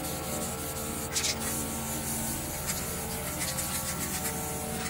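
Aerosol spray-paint can giving a short hissing burst about a second in, followed by a few faint, brief spritzes.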